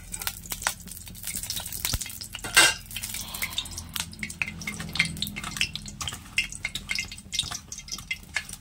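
Oil heating in an iron kadai, crackling and spitting with many small, irregular pops as it gets hot enough for frying, with one louder pop about two and a half seconds in.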